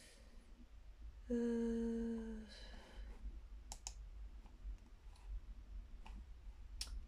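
A woman hums a steady, closed-mouth 'mmm' for about a second. Then a computer mouse clicks sharply, twice in quick succession around the middle and once more near the end, as web pages are opened.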